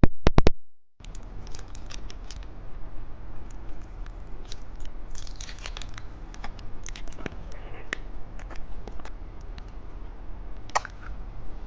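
Plastic candy packaging being torn open and crinkled, with many scattered crackles and clicks; a few loud sharp clicks come at the very start.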